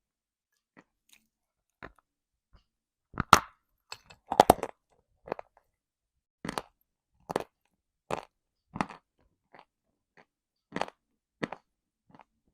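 A person biting and chewing dry, brittle lumps of edible earth, close to the microphone. The crisp crunches come singly at irregular intervals of about one a second, with the loudest bites clustered about three to four and a half seconds in.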